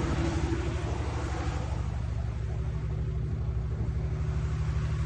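Perkins diesel engine of an 800 kVA FG Wilson generator set running steadily with a low, even rumble. The higher hiss eases off about two seconds in.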